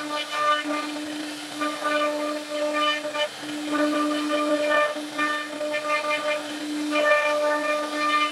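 CNC router spindle whining at a steady pitch while its bit carves a wooden panel; a rougher cutting noise swells and fades in short patches as the tool moves through the wood.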